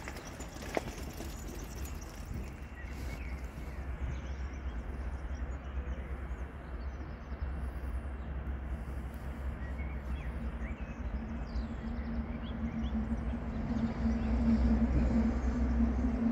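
Distant Škoda class 350 electric locomotive approaching on the Ex 600 express: a steady hum that grows louder over the last few seconds, over a constant low rumble with birds chirping.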